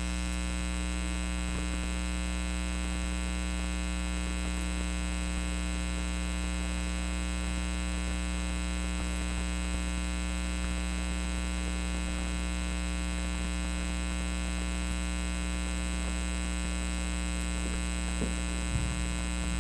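Steady electrical mains hum with many even overtones, unchanging in level, with a few faint knocks near the end.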